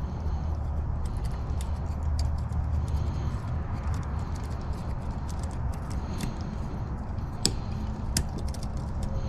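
Light metallic clicking and scraping of a lock pick and tension wrench working the pin stack of a Defiant pin-tumbler door lock, with two sharper clicks late on. A steady low rumble runs underneath.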